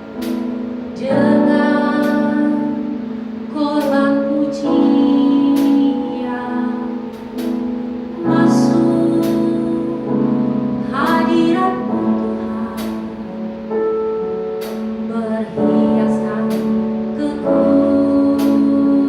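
Music: a woman singing a slow worship song over piano or keyboard accompaniment.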